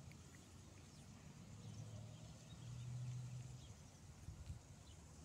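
Faint outdoor ambience: a low rumble that swells around the middle and fades again, with a few faint bird chirps.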